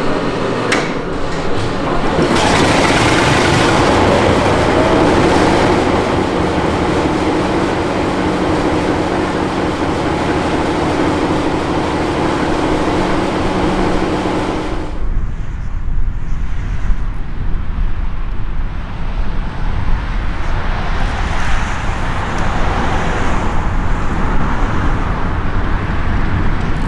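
Heritage diesel locomotive engine running loud and steady. About halfway through the sound changes abruptly to a deeper rumble with little high end.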